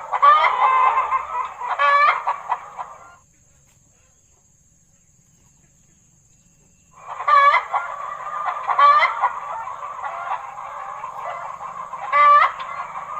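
A flock of chickens clucking and calling over one another, with a few louder single calls standing out. The clucking breaks off about three seconds in and starts again about seven seconds in.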